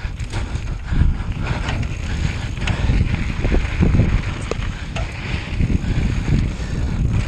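Gusty wind rumbling on the microphone, with scattered clicks and rattles.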